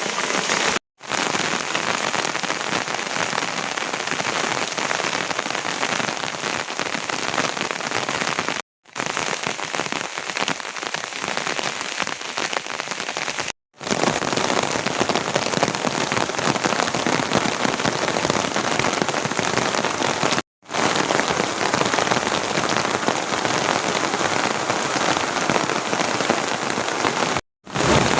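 Steady, heavy rain falling on surfaces, a dense even hiss. The sound drops out to silence five times, each gap very brief.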